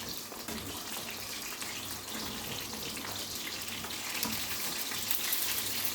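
Food frying in hot oil in a pan, a steady sizzle.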